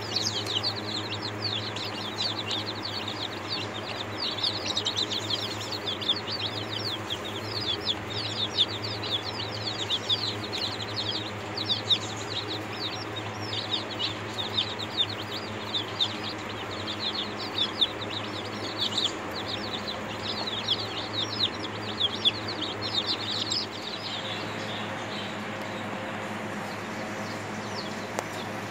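A brood of chicks peeping constantly, many short high falling peeps overlapping, until the peeping dies away about five seconds before the end. A steady low hum runs underneath.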